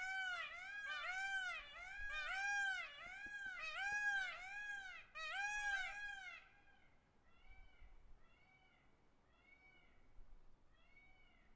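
Peacock (Indian peafowl) calling in a rapid series of short, arching, mewing calls, about two to three a second. About six seconds in the series drops to a fainter, slower run of calls that continues to near the end.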